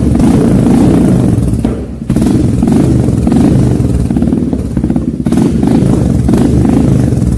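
Royal Enfield Meteor 350's single-cylinder engine running loud through a Red Rooster aftermarket silencer, a steady rapid exhaust thump. The level dips briefly about two seconds in and again about five seconds in.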